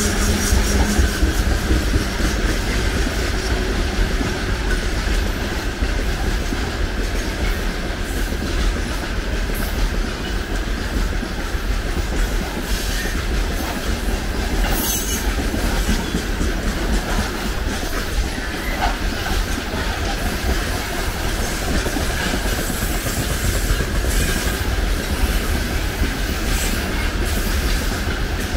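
Freight train wagons rolling past at speed: a steady heavy rumble with the clickety-clack of wheels over rail joints.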